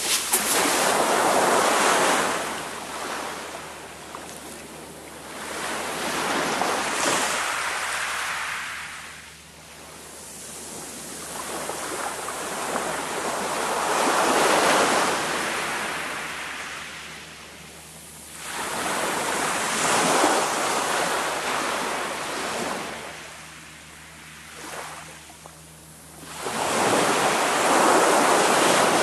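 Small waves breaking and washing up a shingle beach, a hiss that swells and fades five times, several seconds apart.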